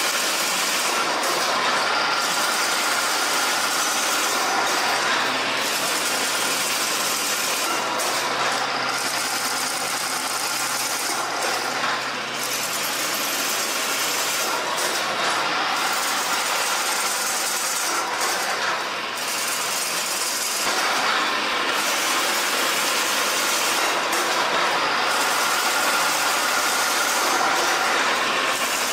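Chain-link fence weaving machine running: a steady mechanical noise with a slight dip that recurs about every three and a half seconds.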